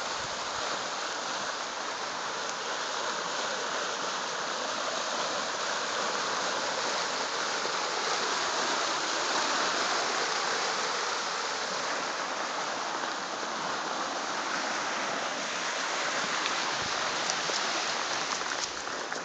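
Creek water gushing in a small white-water cascade: a steady rushing sound, loudest about halfway through. A few light clicks come near the end.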